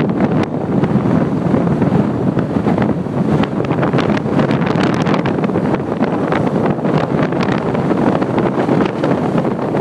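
Strong wind of over 50 mph blowing across the microphone: a loud, steady rush broken by frequent crackling buffets.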